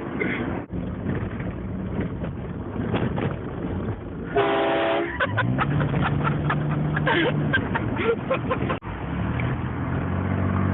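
Car engine and road noise, with one short blast of an aftermarket air train horn chord about four seconds in.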